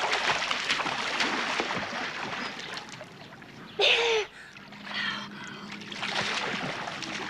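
Water splashing and sloshing from people swimming. A short, loud shout comes about four seconds in, with other brief voices just after it.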